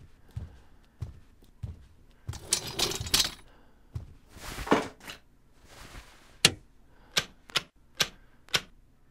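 Soft thudding steps, two bursts of rustling handling noise, then a run of five sharp clicks about half a second apart near the end.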